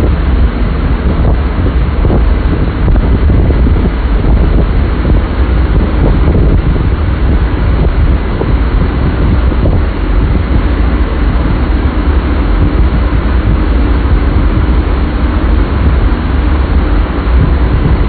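Strong fan-driven wind from a museum hurricane-simulator booth blasting across a phone's microphone: a loud, steady, low rushing noise.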